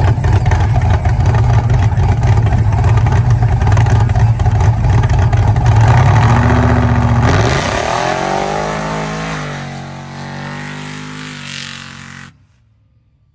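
Lifted 2017 GMC 3500 mega truck's 365-cubic-inch V8 running loud at high revs, then climbing in pitch through repeated rising sweeps as the truck accelerates away and fades. The sound cuts off abruptly about a second before the end.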